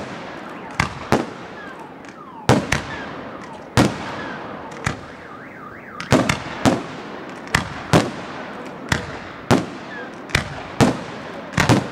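Aerial fireworks shells bursting, about a dozen sharp bangs at irregular intervals, each trailing off in crackle, with a few short whistles between them.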